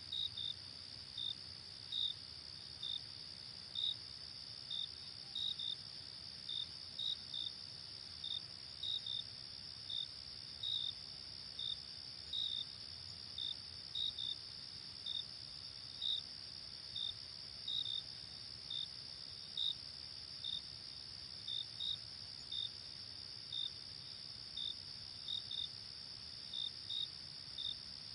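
Crickets chirping: a steady high insect trill, with separate short chirps over it about once a second, some in pairs.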